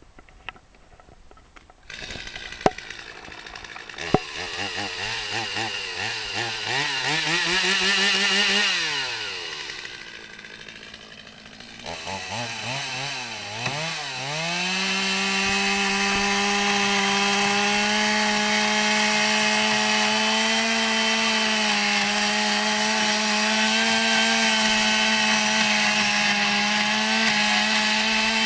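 Two-stroke chainsaw revving up, falling back, then wavering up again and held at a steady full throttle for the second half. That steady full-throttle run is the saw cutting through the steel end plate of an air conditioner coil with a junk chain.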